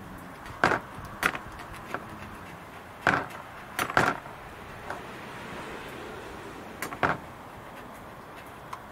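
A screwdriver knocking and scraping inside a diesel intake manifold, with about seven sharp, irregular clicks and scrapes as it jabs at the hard carbon deposits that clog the manifold.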